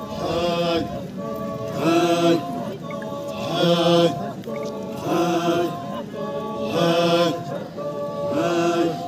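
Group of Chakhesang Naga men chanting together in unison, a short rhythmic phrase repeated over and over about every second and a half to two seconds: a traditional Naga folk chant.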